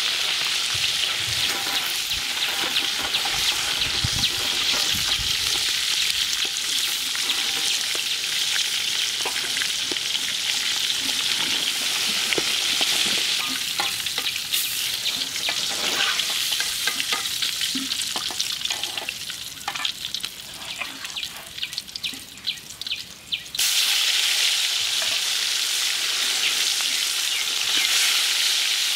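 Pieces of walking catfish deep-frying in hot oil in a steel karahi, a steady sizzle with the metal ladle scraping and knocking against the pan. About twenty seconds in the sizzle thins to scattered crackling pops, then comes back loud all at once.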